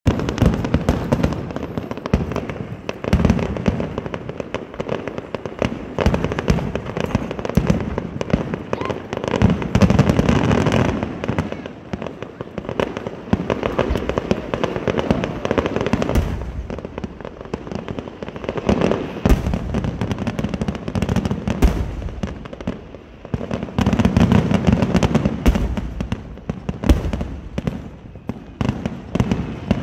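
Aerial fireworks shells bursting in a dense, continuous barrage of bangs, loudest about ten seconds in and again about twenty-five seconds in, with a short lull just before the second peak.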